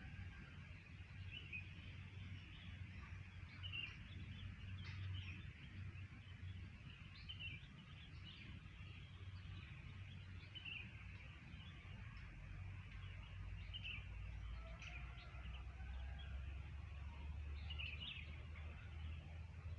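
Wild bird calling outdoors, short high chirps repeated about every one to two seconds, over a low steady rumble.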